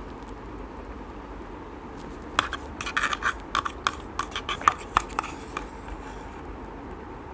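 Wooden spoon scraping and tapping inside a plastic yogurt cup: a quick run of sharp scrapes for about three seconds, starting about two seconds in.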